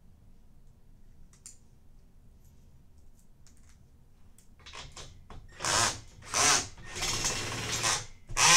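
Power drill driving a bolt into a bed-frame bracket in several short bursts, starting about halfway in after a few seconds of quiet with faint clicks.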